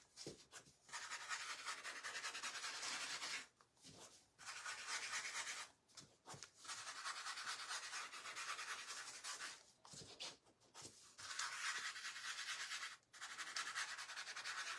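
Quick back-and-forth rubbing of an ink applicator over the frame's surface, working in Distressed Oxide ink to give it an aged look. The strokes come in runs of a few seconds with brief pauses between them.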